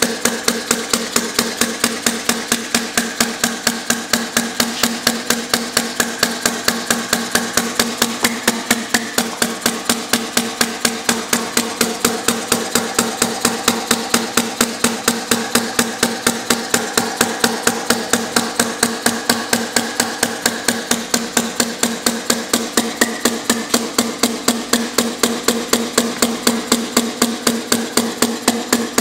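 Small compressed-air model of an inverted hit-and-miss engine running steadily in straight four-stroke mode, its cam-released quick-release air valve admitting a charge each cycle. It makes a regular train of sharp clacks, about three a second.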